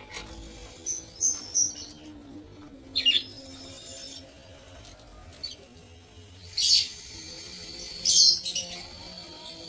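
Budgerigars chirping: short, high, sharp calls in scattered bursts, the loudest near the end.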